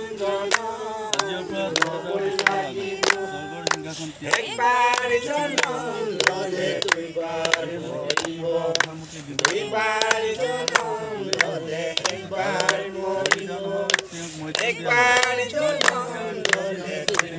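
A group of people singing a worship song together, with hand claps keeping time at about two a second.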